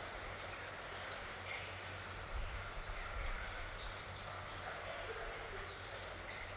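Faint steady background hiss with a few faint, short high chirps scattered through it.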